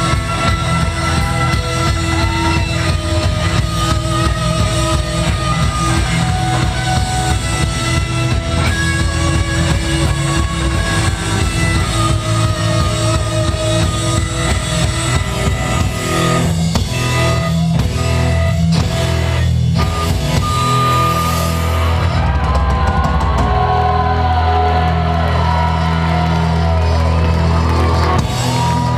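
Rock band playing live: drums, electric guitar and bass. About two-thirds of the way through, the steady drumming gives way to a few separate loud hits, and the band then holds a long ringing chord to close the song.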